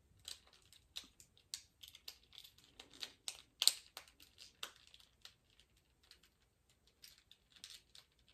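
Faint plastic parts of a transforming action figure clicking and rattling in the hands as they are wiggled to make stubborn joints connect. A quick, irregular run of clicks for the first five seconds, the loudest about three and a half seconds in, then only a few scattered clicks.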